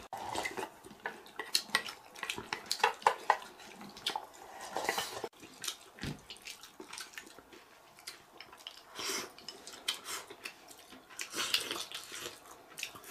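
Chopsticks clicking and scraping against ceramic rice bowls and a stainless-steel stew pot while people eat, in scattered light clinks.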